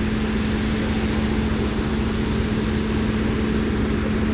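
Fendt 724 tractor's six-cylinder diesel engine running steadily under load while pulling a plough, with a constant hum throughout.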